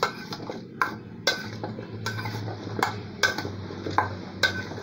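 Metal spoon clinking and scraping against a stainless steel bowl as cubes of kabocha squash are stirred and tossed, the clinks irregular at about two a second.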